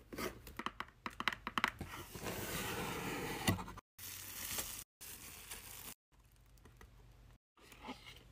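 Unboxing handling sounds from a cardboard mailer box: a quick run of light taps and clicks, then a couple of seconds of plastic bubble wrap crinkling. The sound cuts out completely for brief moments several times, and the handling noise is fainter toward the end.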